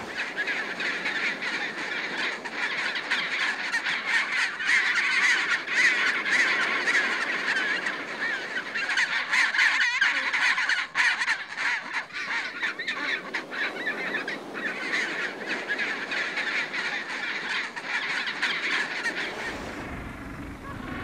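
Chinstrap penguin colony calling: many birds at once, a dense chatter of overlapping calls. Near the end the chatter fades and a low rumble comes in.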